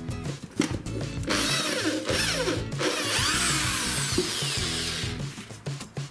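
Parkside PSBM 500 C4 hammer drill boring a hole through a wooden board, its noise building about a second in and dying away after a few seconds. Background music with a steady beat plays throughout.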